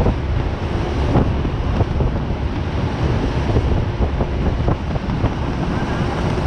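Heavy wind buffeting the microphone while on the move, over a steady low rumble, with scattered small knocks throughout.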